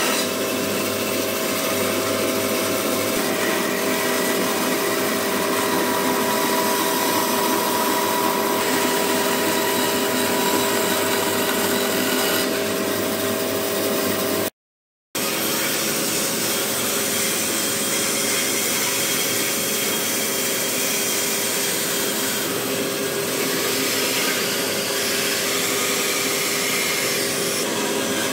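Band saw running steadily as it cuts a curve in a wooden panel, a constant machine hum over a hiss. About halfway the sound cuts out for half a second, then a similar steady hum of a table saw carries on.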